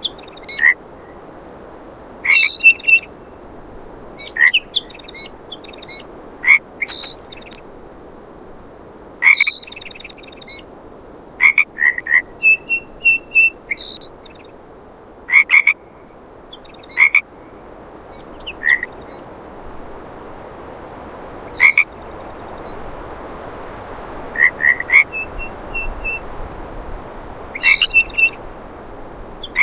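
Frogs calling in short pulsed croaks, one every second or two, over a steady background hiss, with a few brief bird notes mixed in.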